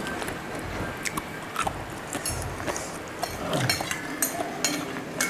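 Eating at a table: metal spoons clinking and scraping on ceramic plates, with quiet chewing. It comes as scattered light clicks, a few every second.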